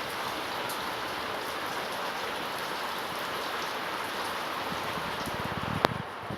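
Steady rain falling, an even hiss. A single sharp click or knock comes near the end.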